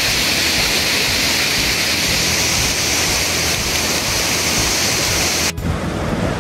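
Steady rushing and splashing water from a shallow creek where a dog is wading. Near the end the sound cuts abruptly to a deeper rushing of a small waterfall cascading over bedrock.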